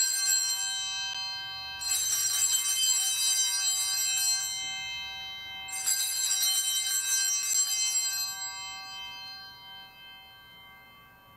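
Altar bells rung at the elevation of the chalice after the consecration. A ring dies away at the start, then the bells are shaken twice more, about two and six seconds in, each ring shimmering bright and then fading out slowly.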